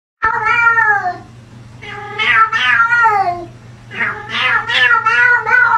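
Domestic cat yowling: three long, drawn-out meows, each wavering and sliding down in pitch, the last one the longest.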